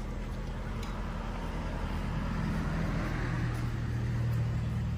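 A motor vehicle's engine running steadily, growing louder about three seconds in.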